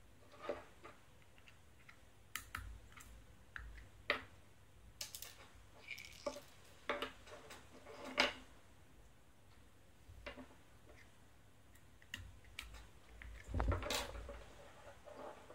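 Small plastic mold pieces being handled and fitted together on a wooden tabletop: scattered light clicks and taps, with a louder cluster of knocks near the end.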